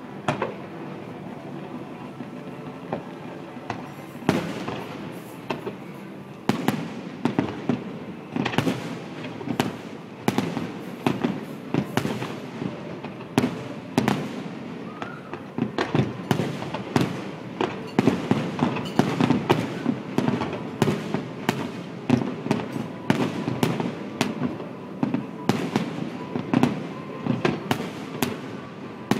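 Aerial fireworks shells bursting one after another. A few scattered bangs at first, then from about four seconds in a dense, irregular run of sharp bangs over a steady background rumble.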